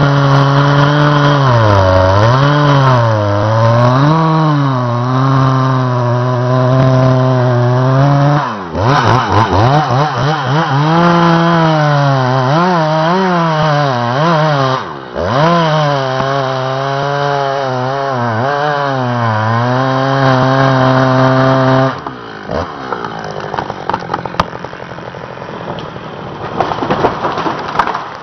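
Two-stroke chainsaw cutting wood, its engine pitch repeatedly sagging under load as the chain bites and then picking back up. The engine sound stops abruptly near the end and gives way to quieter rattling and clicking.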